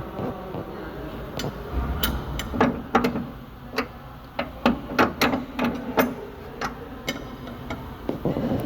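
Irregular sharp clicks and knocks of hand tools on metal, as in under-car repair work, coming thickest between about two and seven seconds in.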